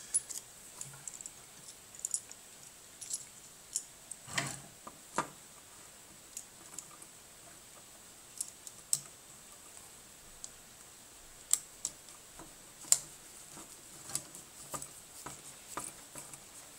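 Irregular small clicks and taps of a flat-head screwdriver against a plug's terminal screws and plastic body while wires are fastened into it, with a few sharper clicks past the middle.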